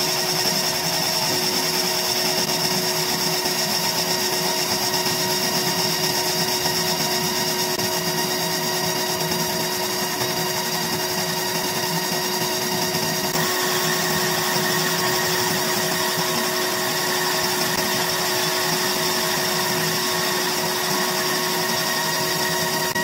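ComMarker B4 fiber laser engraver rastering a dithered photo onto a metal card: a steady buzzing whine from the scanning head over a constant hiss, its mix of tones changing a little past halfway.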